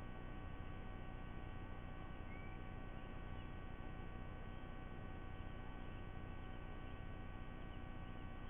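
Steady electrical hum and buzz from a nest-cam audio feed, with several fixed tones over a low rumble. A faint, brief rising note comes about two seconds in.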